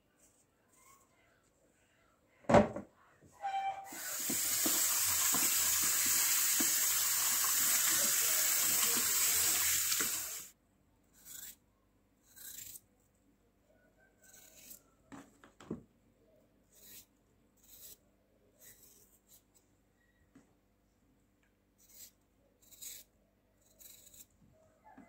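A sharp knock, then a kitchen tap running steadily for about six seconds before it is shut off. After that comes a series of short, crisp knife cuts through raw potato as it is sliced into strips for frying, one every second or so.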